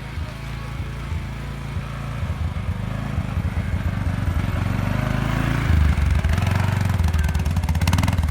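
ATV engine running with a low pulsing throb, growing louder about two-thirds of the way through.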